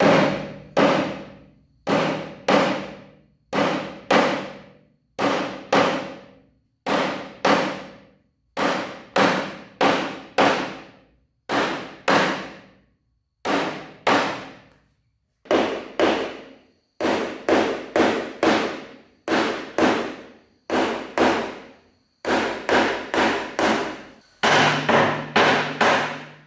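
Hammer blows on a metal fitting at the joint of a wooden bed frame, struck mostly in pairs about every one and a half seconds, each blow ringing briefly and dying away. Near the end the blows come faster, in runs of about four.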